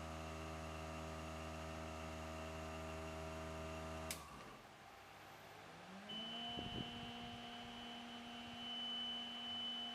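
A steady electric hum with several tones cuts off with a sharp click about four seconds in. A motor then spins up, its pitch rising for about a second before it settles into a steady hum with a thin high whine.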